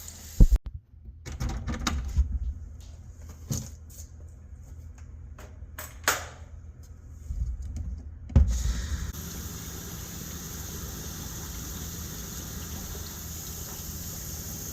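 Knocks and clunks of a bucket and bottle being handled, the loudest about half a second in and near eight and a half seconds, then water running steadily to mix calf feed.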